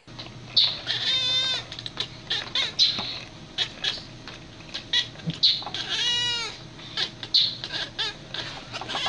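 Domestic cat giving two drawn-out meows that rise then fall, one about a second in and one about six seconds in. Short high chirps and clicks come between them.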